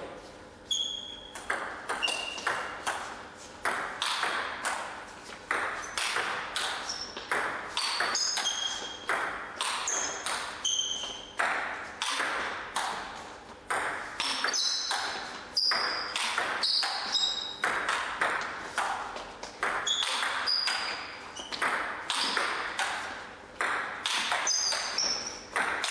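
Table tennis rally: the ball is struck back and forth by the bats and bounces on the table in a long, even run of sharp pocks and pings, about two a second, with an echo in the hall.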